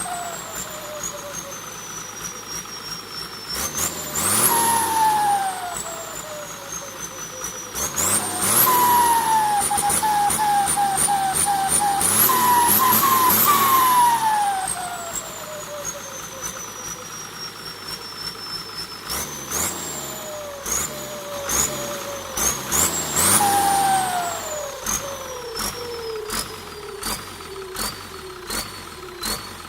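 Holset H1C turbocharger whistling as the engine is revved in several blips, each whistle jumping up quickly and then falling slowly as the turbo spools down. Between the blips comes a fast stuttering chirp, the turbo flutter known as "pente na turbina", with a hiss.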